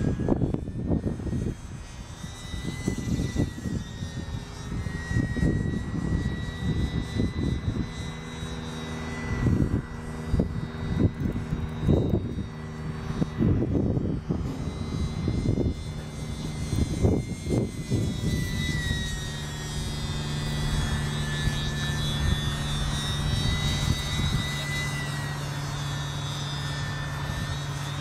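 Radio-controlled model biplane flying overhead, its motor and propeller making a thin whine that gently rises and falls in pitch as it manoeuvres. Irregular low buffeting rumbles over it for the first two-thirds, giving way to a steadier low hum after about 18 seconds.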